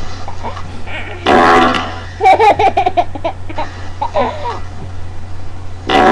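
A short, buzzy fart sound about a second in, answered by a small child's high-pitched giggling. Another fart sound starts near the end.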